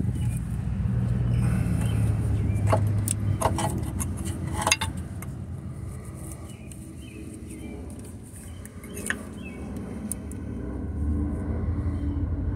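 Scattered metallic clinks and knocks from the loosened engine torque-mount bracket being worked out of the engine bay, over a low steady rumble.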